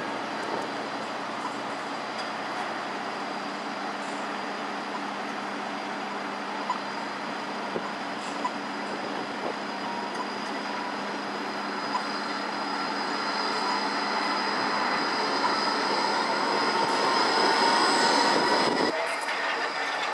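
A G:link light rail tram running along curved street track, growing louder as it approaches, with a steady high squeal over the running noise. The sound drops away suddenly shortly before the end.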